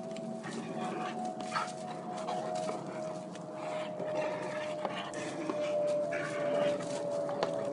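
A Rottweiler whining in one long thin tone that slowly drifts lower, panting as it grabs and tugs at a hanging rubber tyre swing. Scattered light knocks and scuffs come from the tyre and the dog's paws.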